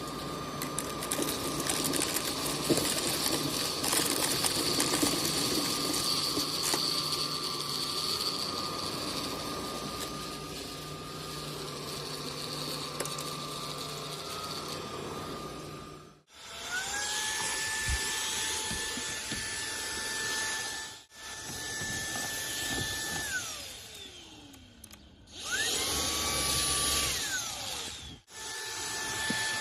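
Ultenic U18 Pro cordless stick vacuum running with a steady whine and rushing air for about the first half. Its motor then spins up to a higher whine, holds, and winds down with a falling pitch. It starts up again briefly, then runs again near the end.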